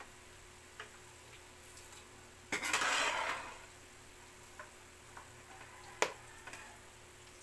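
Chopped pork tipped into a stainless-steel pot of shredded banana heart, the pieces tumbling in for about a second. A single sharp knock comes a few seconds later, with faint scattered ticks around it.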